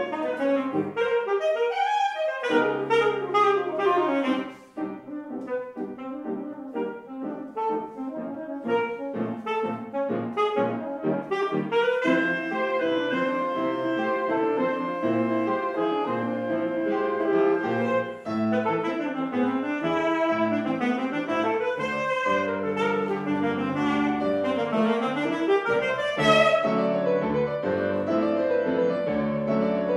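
Alto saxophone and grand piano playing a classical duet. Quick, short notes fill the first half and longer held saxophone notes the second, with a brief drop about four and a half seconds in.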